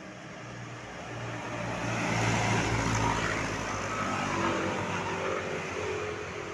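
Tour bus driving past, its engine hum and tyre noise swelling to a peak about two to three seconds in, then fading.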